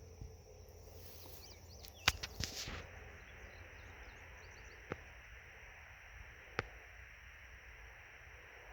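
Quiet outdoor ambience with a steady high insect drone. About two seconds in comes a brief cluster of sharp clicks with a short rush of noise, and later two single sharp clicks.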